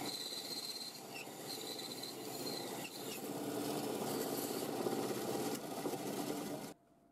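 Bandsaw running and cutting through a laminated plywood block, a steady rasping saw noise. It cuts off suddenly near the end.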